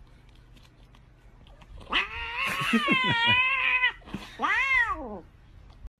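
A cat yowling: one long, drawn-out wavering call about two seconds in, then a shorter meow that rises and falls. This is a cat's demanding cry over a lickable treat tube held away from it.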